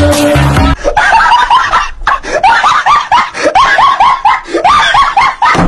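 Background music stops about a second in, and a high-pitched voice then laughs in quick, repeated bursts.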